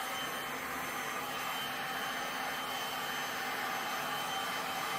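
Large electric heat gun running steadily, a constant blowing rush with a faint high whine, as hot air is played over a fresh resin pour to reshape the waves.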